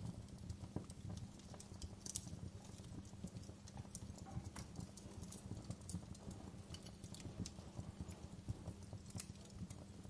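Wood fire burning in a fireplace, crackling with irregular sharp pops and snaps over a low, steady rumble of flames.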